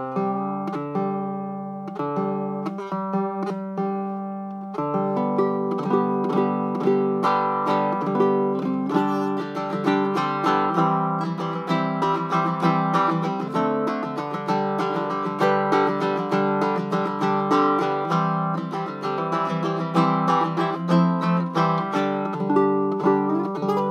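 Handmade baritone ukulele with a lightly curly Port Orford cedar top and grafted walnut back and sides being played. Slow, ringing chords at first, then a louder, busier rhythm of plucked and strummed chords from about five seconds in.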